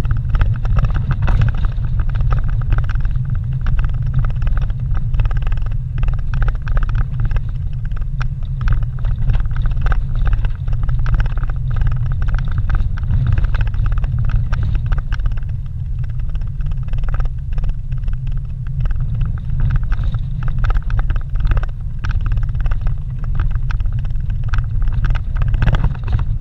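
Vehicle driving on a rough dirt road, heard from inside the cabin: a steady low engine and road rumble with frequent small knocks and rattles from the bumpy surface.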